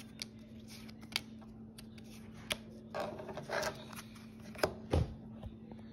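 Stiff game cards being handled and laid on a wooden table: scattered light clicks, a brief sliding rustle about three seconds in, and a soft thump near the end.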